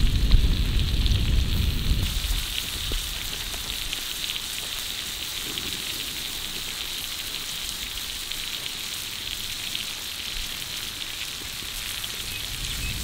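Ribeye steak and melting butter sizzling on a cast-iron griddle: a steady hiss with fine crackles. A low rumble sits under it for the first couple of seconds.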